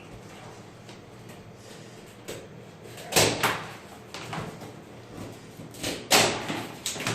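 Large cardboard carton being cut and torn open: a string of short rips and knocks, the loudest about three seconds in and again about six seconds in.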